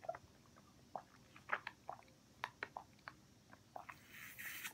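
Faint sipping and swallowing from a Capri Sun foil drink pouch through its straw: scattered small clicks and ticks, then a short breathy hiss near the end.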